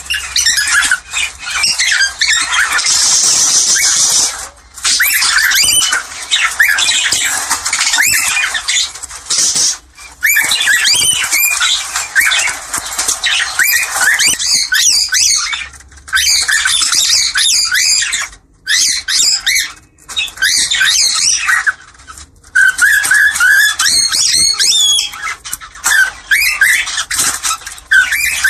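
Cockatiels chattering and squawking in a busy run of short chirps and harsh calls, with brief pauses. These are cockatiel mating calls, meant to bring a pair into breeding condition.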